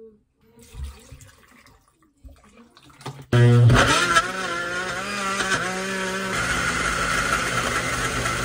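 Countertop blender switching on about three seconds in and running loudly, chopping mango chunks and honey into a smoothie; its whine wavers at first as the fruit breaks up, then settles to a steady pitch. Before it starts, faint handling sounds as the jar is set on the base.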